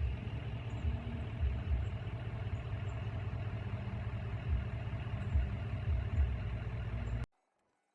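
Car cabin noise while driving: a steady low engine and road rumble with a few low thumps, cutting off suddenly about seven seconds in.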